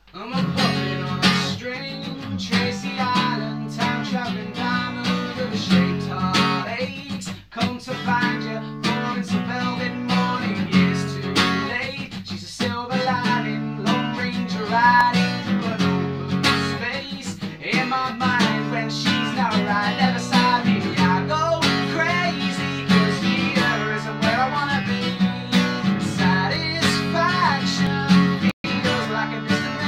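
Acoustic guitar strummed in a driving rhythm, starting abruptly, with a man singing over it.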